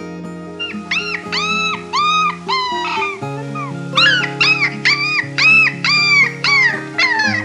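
An animal giving a run of short high calls, each rising, holding and falling, over background music; the calls come closer together after about four seconds and slide downward in pitch near the end.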